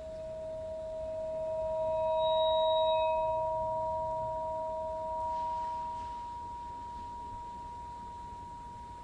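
Vibraphone bars bowed with string bows, giving two sustained, pure ringing tones that swell to their loudest about two to three seconds in. The lower tone fades out about six seconds in while the higher one keeps ringing.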